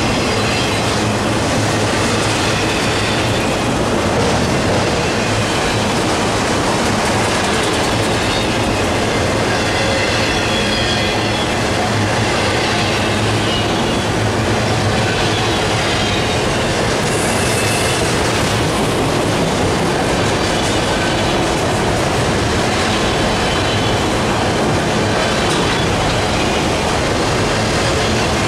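Autorack freight cars of a passing CSX train rolling by close up: a loud, steady rumble of steel wheels on rail, with faint high wheel squeals now and then.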